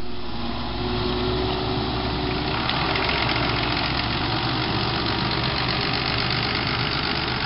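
Diesel engine of a Tecnoma Laser self-propelled crop sprayer running steadily while the machine drives slowly forward.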